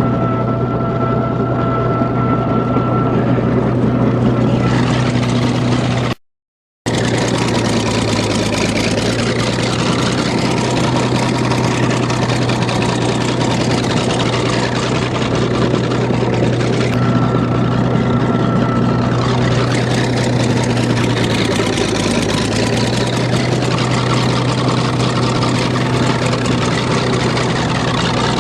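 Old bulldozer's diesel engine running steadily and loudly, its note sagging briefly twice. The sound cuts out completely for about half a second some six seconds in.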